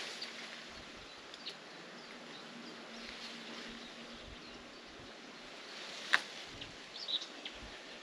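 Quiet rural outdoor ambience with a few faint, scattered bird chirps, a faint low hum for about two seconds around the middle, and a single sharp click about six seconds in.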